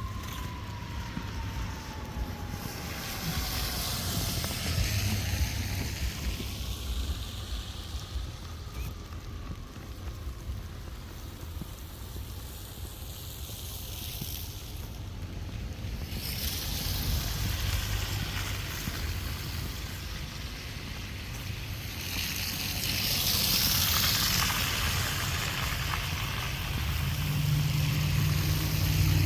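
Street traffic in a snowstorm: vehicles go by with swelling tyre hiss several times, over a steady low rumble of wind on the microphone. An engine draws closer near the end.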